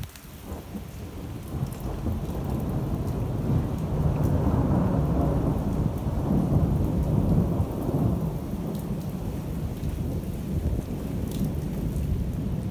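Long rolling thunder from a huge intracloud spider lightning flash. It builds over the first few seconds, is loudest in the middle and slowly dies away, with rain falling throughout.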